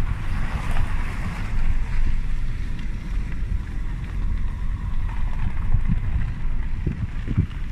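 A car driving slowly, with a steady low engine and road rumble, a few bumps, and wind noise on the microphone.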